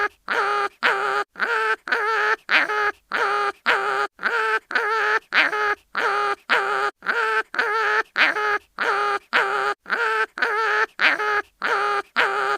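Cartoon animal crying-in-pain sound effect: short, high, wavering cries repeated evenly about twice a second in a steady loop.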